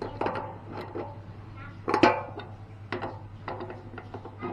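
Several sharp metallic knocks and clinks with a short ring, the loudest about two seconds in, over a steady low hum.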